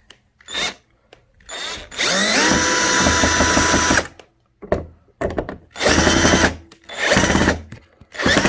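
Cordless drill-driver unscrewing stand-leg screws in a series of motor runs. A few brief blips come first, then one long run of about two seconds whose whine rises as the motor spins up and then holds steady. Several shorter runs follow.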